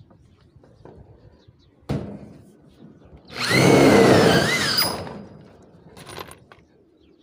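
Corded electric drill driving a self-drilling roofing screw through a galvanized corrugated steel roof sheet into the steel purlin. It runs loudly for about a second and a half midway, with a wavering whine as the tip cuts the metal. A sharp knock comes about two seconds in, and a short weaker burst follows near the end.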